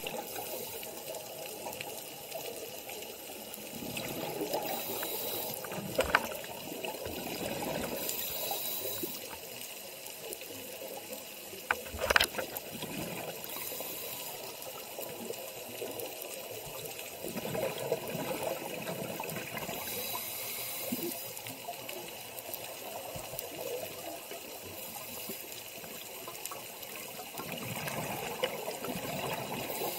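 Scuba regulator exhaust bubbling and hissing underwater, in swells every few seconds as the divers breathe out. A couple of sharp clicks come through, about a quarter and halfway through.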